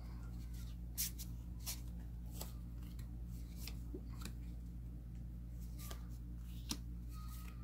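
Trading cards being handled and flipped through by hand: scattered soft flicks and slides of card on card, roughly one a second, over a steady low hum.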